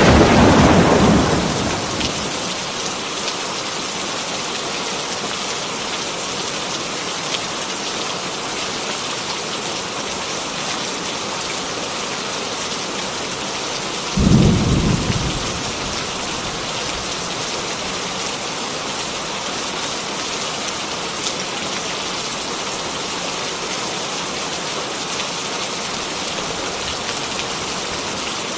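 Heavy rain falling steadily, with a loud thunderclap fading away in the first two seconds and a shorter clap of thunder about halfway through.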